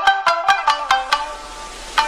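Outro music: a quick run of bright, plucked-sounding notes, about six a second, that stops just over a second in and leaves a ringing tail.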